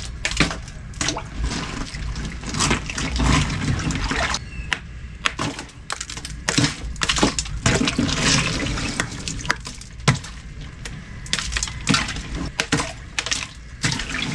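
Chunks of ice clattering and cracking in icy water as an ironwood stick breaks them up and stirs them in a chest freezer, with many sharp knocks and a steady sloshing.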